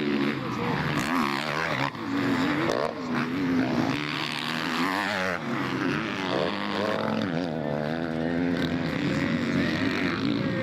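Several motocross motorcycles racing, their engines revving up and down so the pitch rises and falls continuously, with overlapping engine tones.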